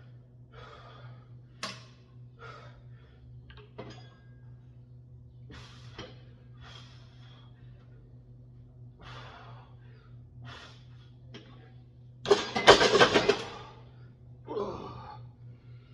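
A man breathing hard from heavy lifting, a puff of breath about every second over a steady low hum. About twelve seconds in comes a louder rush of noise lasting about a second.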